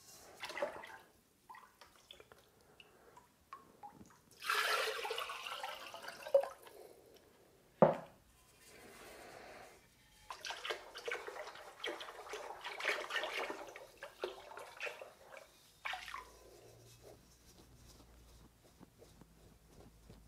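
Liquid glaze being poured into and out of bisque-fired porcelain vases over a bucket of glaze, splashing and dripping back into it, in two longer pours about four and ten seconds in. A single sharp knock comes about eight seconds in.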